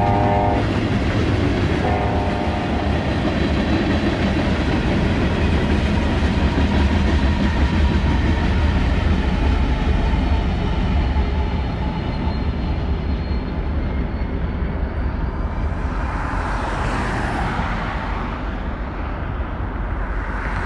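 Union Pacific freight train rolling past at speed: a steady rumble of tank cars on the rails, with two short multi-tone horn blasts at the start and about two seconds in. Midway the two rear locomotives pass with their diesels running. Near the end a rushing sound swells and fades as the train draws away.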